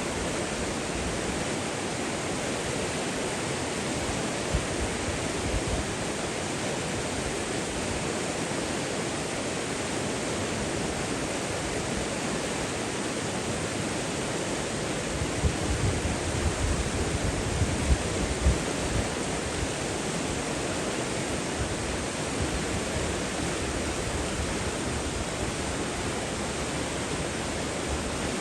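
Running water: a steady, even rush of flowing water, like a stream or small waterfall. A few brief low thumps come a little past the middle.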